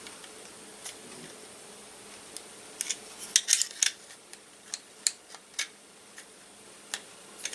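Small metal-on-metal clicks and scrapes of a screwdriver prying at a tight-fitting part inside a Glock 43 pistol frame, with a quick cluster of clicks about three seconds in and scattered ticks after.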